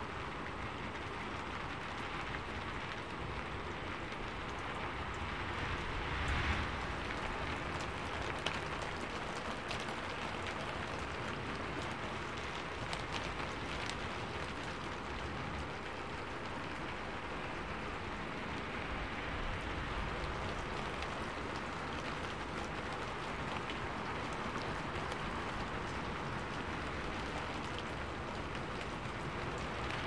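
Steady rain falling, an even hiss with a few sharper drops and a brief louder swell about six seconds in.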